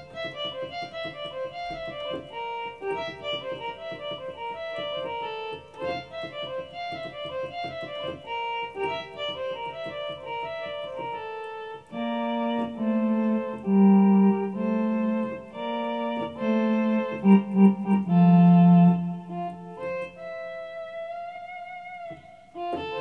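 Electronic keyboard playing a duranguense requinto ornament line in F: quick single notes at first, then from about halfway lower left-hand notes join in, louder. Near the end a held note wavers in pitch.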